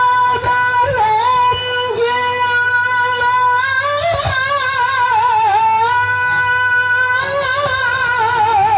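A qori's melodic Quran recitation in a high male voice, amplified through a handheld microphone: long held notes with wavering melismatic ornaments.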